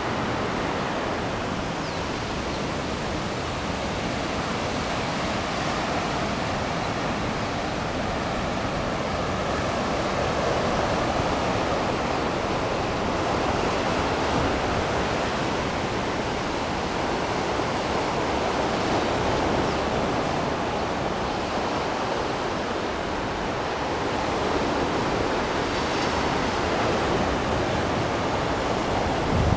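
Ocean surf washing onto a beach: a steady rush of breaking waves that swells and eases every several seconds.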